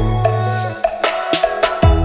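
Background music: an electronic track with a deep sustained bass and a steady beat of sharp percussion hits.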